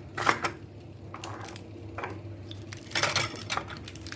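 Spice jars clinking and knocking as they are picked up and set down, a handful of sharp clinks with a quick cluster about three seconds in.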